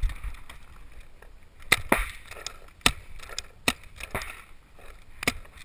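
Paintball markers firing: about six sharp, separate pops at irregular intervals, two close together near the two-second mark.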